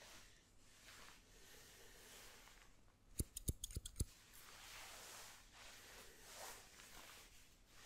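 Hairdressing scissors snipping close to the microphone: a quick run of about five sharp snips about three seconds in, between soft, quiet swishes.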